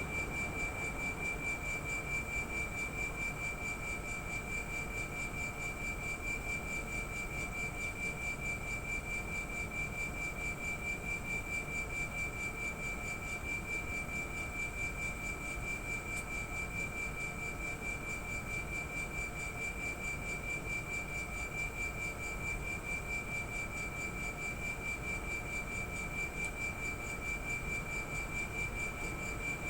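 Air-conditioner outdoor unit's compressor running with a steady high-pitched whine and a fast, even pulsing: the abnormal compressor noise under investigation.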